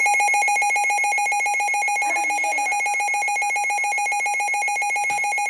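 Midland WR400 weather radio's built-in alert alarm sounding: a loud, rapidly pulsing, high electronic beep held steady, the radio's signal that a warning alert has come in.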